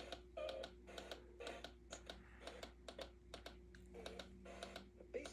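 Faint, irregular clicks and taps, several a second, over a steady faint hum.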